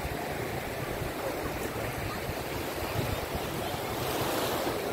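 Small, gentle waves washing up on a sandy beach: a steady rush of surf.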